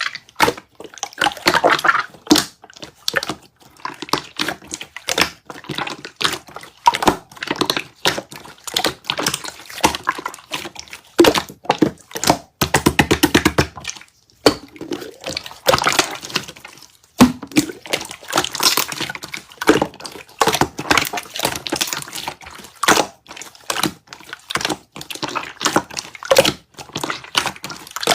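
Slime being squished and pressed by hand, giving a dense, irregular stream of sticky clicks, crackles and pops, with a fast run of small pops about 13 seconds in.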